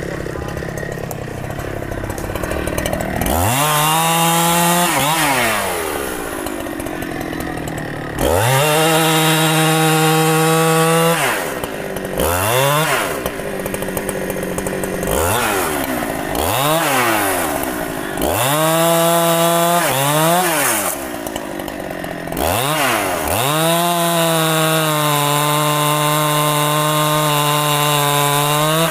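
Large two-stroke chainsaw cutting a rain tree, throttled up in repeated bursts that hold a steady, lower engine pitch under load and then drop back to idle. There are about seven bursts, starting about three seconds in, and the longest runs through the last five seconds or so.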